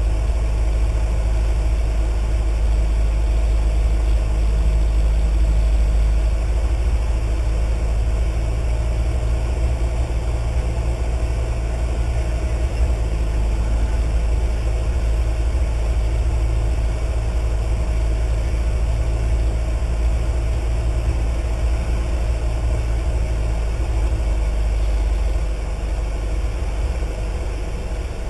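Cessna 152's four-cylinder Lycoming O-235 engine and propeller heard from inside the cockpit: a steady, low drone on final approach, dropping slightly in level near the end.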